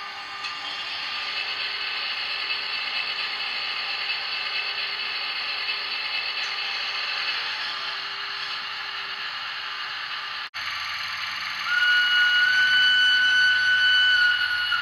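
Sound from a model locomotive's ESU LokSound decoder: a steady mechanical whirring hiss with a faint steady tone beneath it, cut off briefly about ten seconds in, then a loud held high-pitched tone lasting about three seconds near the end.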